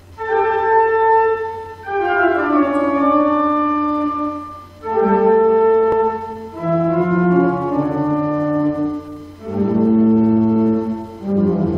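Slow music of held chords played in phrases about two to three seconds long, with short breaks between them, over a steady low hum.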